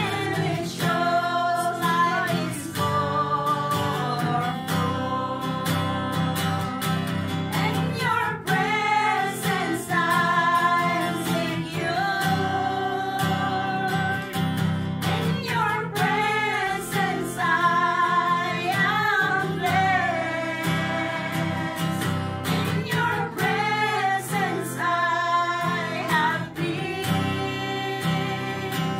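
A group of women singing a Christian worship song together, accompanied by one of them strumming an acoustic guitar.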